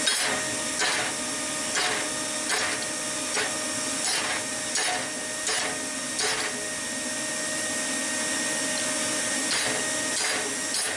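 Hand hammer striking hot steel on an anvil, about nine blows at a steady pace, a pause of about three seconds, then three more near the end, over a steady mechanical whir.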